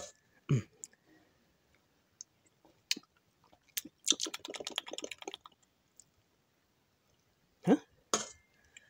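Wet mouth smacks and clicks of someone tasting a spoonful of sauce, with a rapid run of smacks lasting about a second and a half near the middle and two short mouth sounds near the end.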